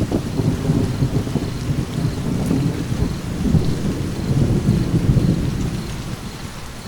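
A roll of thunder that starts suddenly and rumbles in swells for about six seconds before fading, over steady rain.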